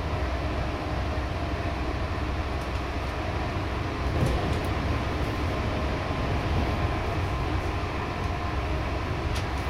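Double-deck passenger train hauled by a DB class 218 diesel locomotive, running at speed with a steady low rumble from the wheels on the track. A faint click sounds about four seconds in and another near the end.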